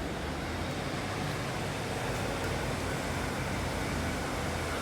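Class 150 Sprinter diesel multiple unit departing: a steady low engine drone under an even hiss.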